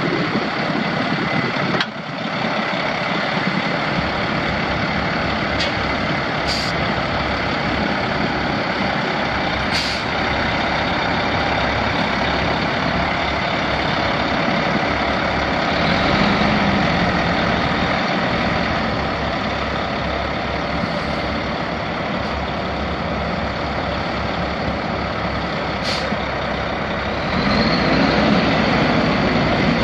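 Caterpillar C13 six-cylinder diesel of a 2010 Kenworth T800 dump truck running steadily, with a few short high hisses along the way. The engine pitch rises about halfway through and again near the end, where it gets louder.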